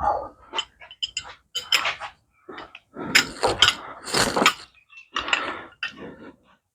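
Greasy metal wrenches clinking against each other and being rubbed clean with a rag: irregular clicks and clinks, with a longer stretch of scrubbing about halfway through.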